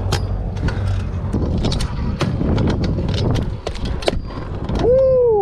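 Stunt scooter wheels rolling over rough, cracked pavement: a low rolling rumble with many sharp clicks and knocks. Near the end there is a short, loud pitched sound that rises and then falls.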